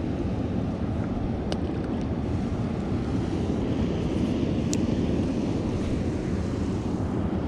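Steady low rushing noise of wind buffeting the microphone outdoors, with a couple of faint clicks.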